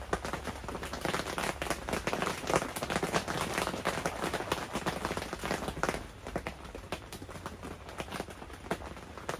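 Rain pattering on the tent, a dense run of irregular drops hitting the fabric that thins out to scattered taps after about six seconds.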